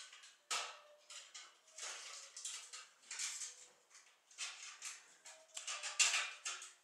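Repeated short rustling and scraping noises, a dozen or so quick bursts with brief gaps between them, the loudest about six seconds in.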